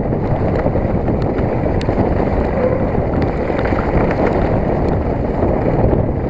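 Wind buffeting the camera microphone while riding a Specialized Enduro 29 mountain bike fast downhill, a steady loud rushing rumble with light clicks and rattles from the bike on the rough trail.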